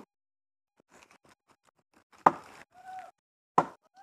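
Wooden club striking wooden wedges driven into a log to split it lengthwise by hand: two sharp knocks a little over a second apart, the first about halfway in, after a few faint taps.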